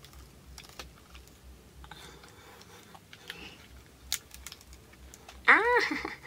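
Faint clicks and crackles of a cooked lobster claw's shell being pulled apart and handled, with one sharper click about four seconds in. Near the end there is a brief high vocal sound that rises and falls in pitch, louder than anything else.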